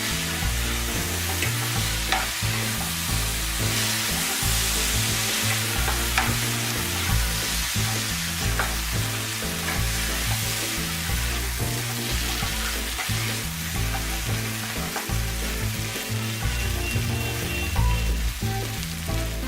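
Sago-pearl khichdi mixture sizzling in a hot pan as it is stirred, with occasional light clicks of the spatula against the pan. Background music with low notes runs underneath.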